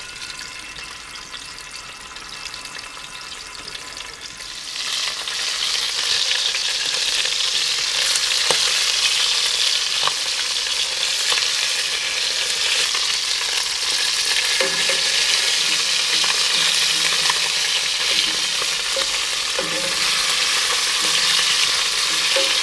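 Chicken drumsticks frying in hot oil in a cast-iron Dutch oven: a steady sizzle that grows clearly louder about five seconds in. A few light clicks of metal tongs turning the pieces come a few seconds later.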